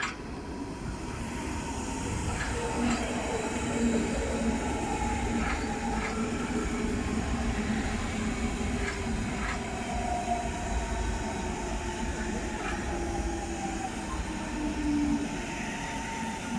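Train moving along the rails at the station: a low rumble with several whining tones that slowly fall in pitch, and scattered clicks from the wheels.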